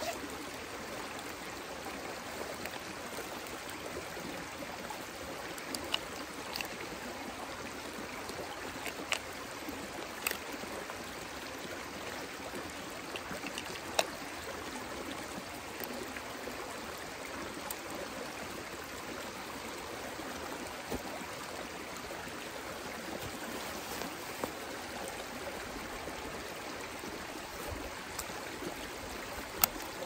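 Mountain stream running steadily, with a few sharp clicks from gear being handled, the loudest about halfway through and near the end.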